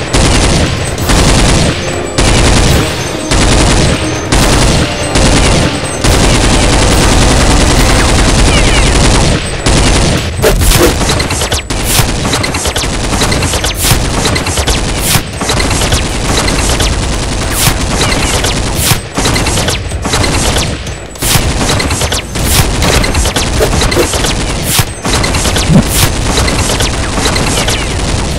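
Rapid automatic gunfire sound effects, dubbed over Nerf blaster play. The firing comes in bursts with short gaps about once a second at first, then runs as one long unbroken burst for several seconds, then goes on in irregular bursts.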